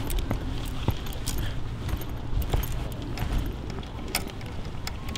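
Light metallic clicks and rattling, scattered irregularly, over a steady low rumble.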